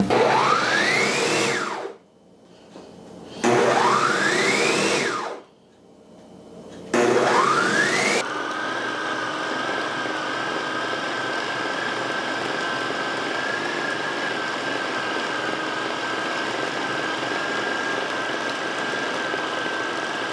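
Countertop blender grinding raw chicken and beef into meatball paste. It is pulsed three times, each pulse a short rising whine as the motor spins up and then dies away. From about eight seconds in it runs steadily with an even high whine, a little quieter than the pulses.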